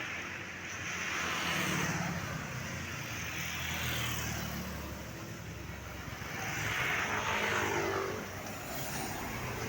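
Two road vehicles passing on a rain-wet road. Each one is a swell of tyre hiss and engine hum that rises and fades, the first about two seconds in and the second around seven to eight seconds in.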